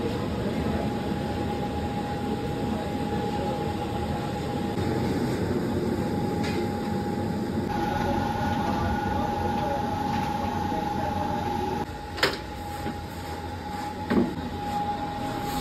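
Steady rushing hum with a constant thin whine through it, like a burner or fan working. Two sharp metallic knocks come near the end, the second as the wide metal kadhai of milk is gripped and shifted on the floor.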